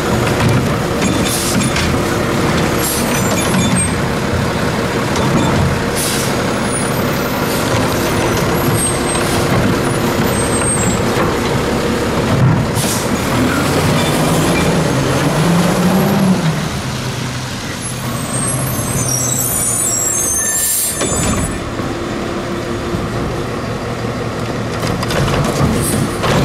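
Front-load garbage truck (Wittke Starlight body on a CCC LET2 chassis) working: its diesel engine runs steadily and speeds up briefly about halfway through, with several sharp air hisses, the loudest about three quarters of the way in.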